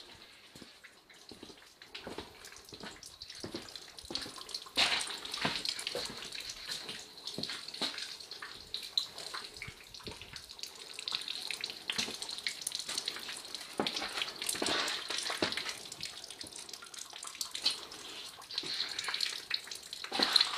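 Water running, a steady hiss with scattered small knocks and clicks.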